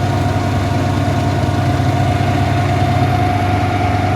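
Diesel engine of a concrete pump running steadily, with a deep, even hum and a steady higher whine above it.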